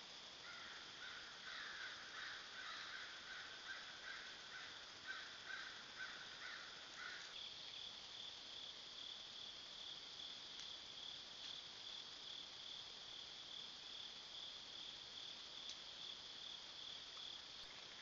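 Faint chorus of night insects, a steady high-pitched drone. A lower, rhythmic pulsing call sounds over it for the first seven seconds or so, then stops.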